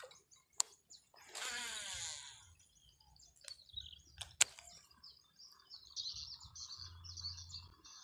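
Birds chirping steadily through the second half, with a short rushing whoosh about a second in and a few sharp clicks around four seconds in, the loudest of them a single crisp click.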